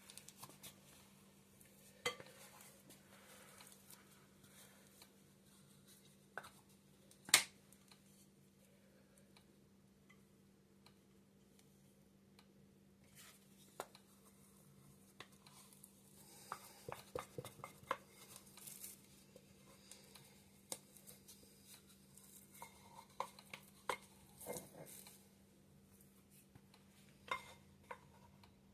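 Kitchen utensils and a bowl handled while working sourdough: scattered light taps, clinks and scrapes, with one sharp knock about seven seconds in and a busier run of small clicks in the second half. A faint steady hum runs underneath.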